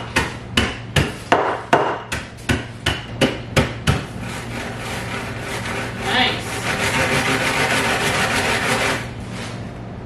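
Wooden rolling pin whacking a plastic bag of graham crackers on a wooden table about a dozen times in quick succession, then rolled back and forth over it, a steady crunching rub as the crackers are crushed into crumbs.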